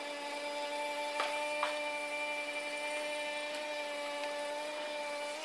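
Electric forklift's drive motor whining at a steady pitch as the truck creeps forward and turns, with two light knocks a little over a second in.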